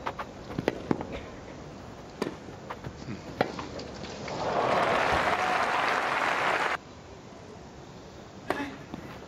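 Tennis ball struck by racket strings in a rally, a handful of sharp pops spaced about half a second to a second apart. A crowd applauds for about two and a half seconds, cut off abruptly, and then a serve and return are hit near the end.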